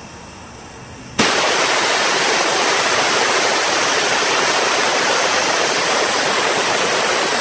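Steam boiler's pop-off safety valve lifting at its 100-pound set pressure: a sudden, loud hiss of escaping steam starts about a second in and holds steady.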